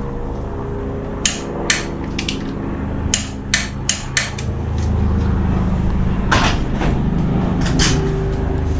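Hammer tapping on metal, about nine sharp, irregular knocks, over a steady low hum.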